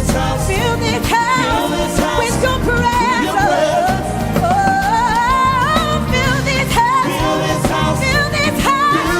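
Live gospel praise-and-worship music: a lead voice sings long, gliding notes with runs over the band, with a slow rising sweep in the middle.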